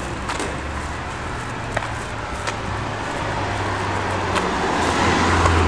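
Road traffic on a street: a steady rumble of passing cars, swelling as a vehicle passes near the end.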